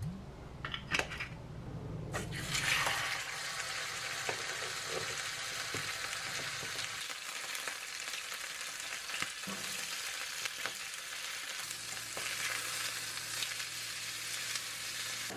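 Beef steak sizzling in hot oil in a frying pan. The sizzle starts suddenly and loudest about two seconds in, then carries on steadily with a few light clicks of utensils on the pan.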